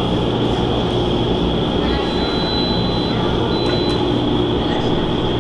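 Vertical indoor skydiving wind tunnel running with a flyer in the air: a loud, steady rush of air with the hum of its fans underneath.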